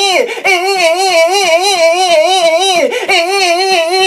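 A high-pitched voice warbling a held trill, its pitch wobbling up and down about five times a second. It breaks off briefly twice, about a quarter second in and near three seconds.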